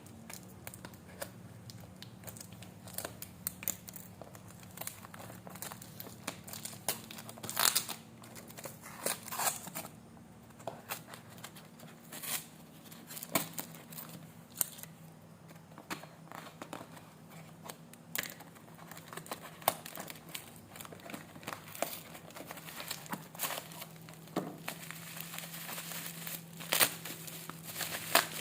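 Parcel packaging being opened by hand: wrapping crinkling and crackling in irregular bursts, with tearing sounds.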